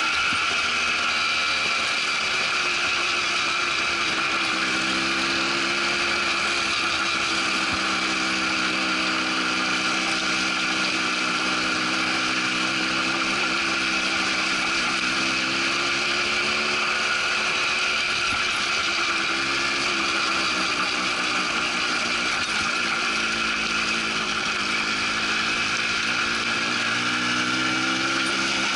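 Quad bike engine running while riding along a rough gravel track, its pitch rising and falling slowly with the throttle, with a steady high whine over it.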